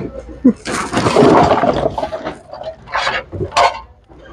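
Hands rummaging through items in a thrift-store bin: a sharp knock, then about a second of rustling and clattering as objects are shifted, and two shorter rustles near the end.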